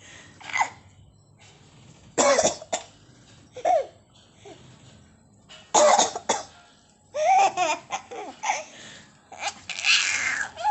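A person coughs a few times, and a five-month-old baby bursts into laughter in between, with short, high, wavering giggles set off by the coughs.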